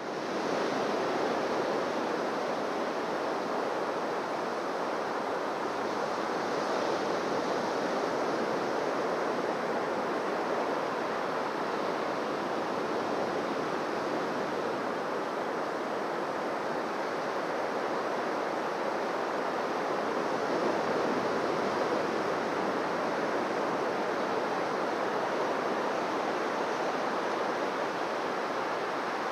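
Surf on a beach: a steady wash of waves with no distinct single breakers standing out.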